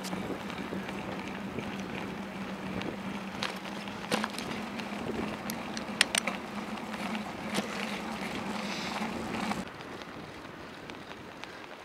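Bicycle rolling along an asphalt road: steady tyre and wind noise under a low, even hum, with a few sharp clicks and rattles. About ten seconds in it drops to a quieter rolling sound.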